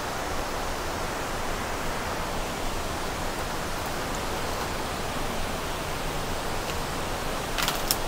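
River water flowing: a steady, even hiss that does not change. A brief rustle comes near the end.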